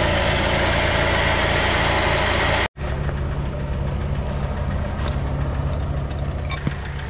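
Jeep Wrangler's 2.0 TDI diesel engine idling steadily while its winch line is rigged. The sound cuts out for an instant about a third of the way in and comes back a little quieter, with a few light clicks.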